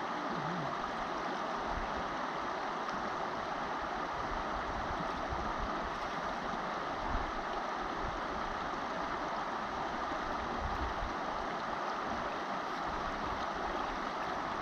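Steady rush of a shallow river running over stones and gravel.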